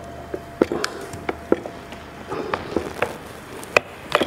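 Irregular sharp clicks and knocks of a FeiyuTech Scorp Pro camera gimbal's hard parts being handled as its side handle is fitted to the base and its arms are gripped.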